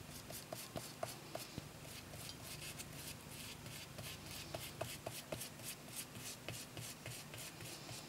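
Quick, rhythmic scratchy rubbing strokes of a tool worked back and forth on paper, about four strokes a second, with faint ticks in between.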